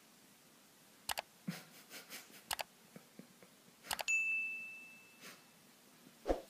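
Sound effects of a subscribe-button animation: a few faint clicks, then about four seconds in a click and a bright bell ding that rings out for about a second and a half. A short soft thump comes near the end.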